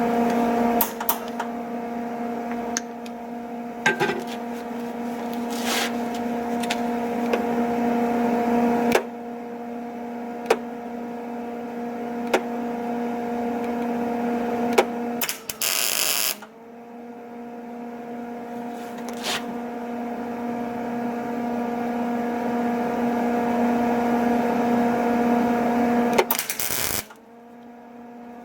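MIG welder buzzing steadily as it lays weld to build up a worn spot on a door knob shaft, with crackling and sharp pops from the arc. The buzz stops briefly about halfway through and again near the end.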